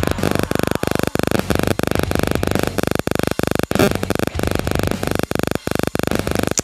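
Loud, harsh, distorted background music with a rapidly stuttering pulse.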